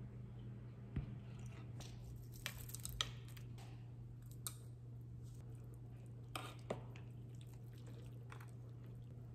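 Scattered light clicks and clinks of an aluminium pot, chopsticks and a metal spoon being handled on a table, over a steady low hum.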